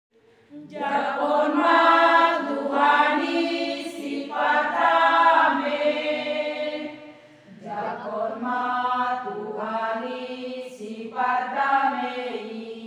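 Women's church choir singing a hymn together, a conductor leading them, in held sung phrases with a short breath break about halfway through.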